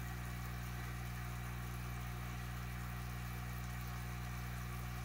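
Aquarium filter pump running: a steady low hum with a faint even hiss over it.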